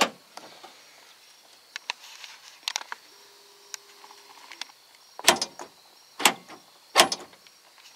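Clicks and clunks from a 1986 Ford F-150's power door lock switches and lock mechanism being worked: light clicks at first, a brief faint hum in the middle, then three loud clunks about a second apart. The owner suspects the lock actuators are failing.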